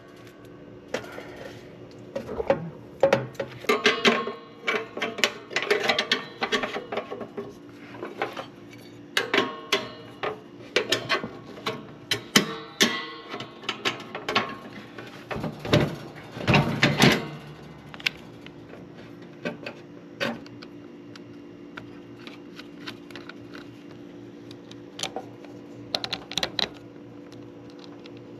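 Hand tools clicking and clattering on a battery cable terminal as it is clamped down on the post: a busy run of sharp metallic clicks and knocks for the first eighteen seconds or so, then only occasional clicks over a steady hum.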